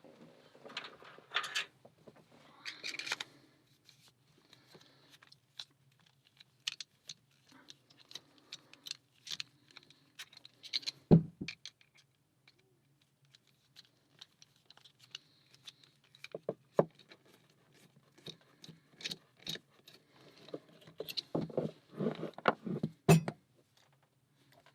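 Hands handling a Schlage six-pin pin-tumbler lock and small items on a table, preparing to take it apart: scattered small clicks, taps and brief scrapes, with a loud knock about eleven seconds in and a run of louder knocks near the end.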